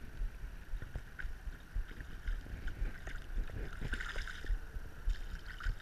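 Water splashing and dripping as a hooked striped bass thrashes at the surface close by, with the biggest splash about four seconds in. Low wind rumble on the microphone.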